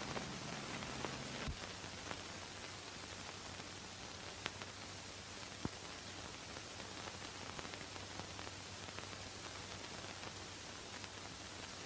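Steady hiss and faint low hum of an old film soundtrack, with a few scattered clicks.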